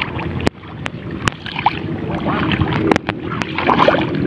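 Rice-paddy ambience: a dense chorus of frogs and insects with a few short chirps, wind rumbling on the microphone, and a few sharp clicks.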